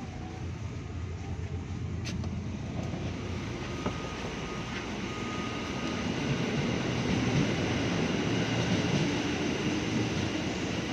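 KRL electric commuter train moving along the station platform, its rumble growing steadily louder.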